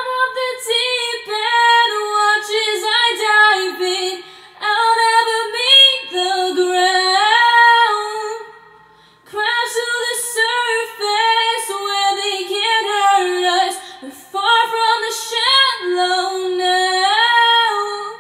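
A woman singing unaccompanied in a high register, with quick melismatic runs, in four phrases separated by brief breaths.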